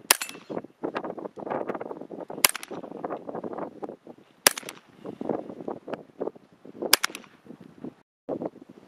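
Four single shots from a Palmetto State Armory 8.5-inch .22LR AR pistol upper, each a sharp crack with a short tail. They come about two to two and a half seconds apart as the action cycles.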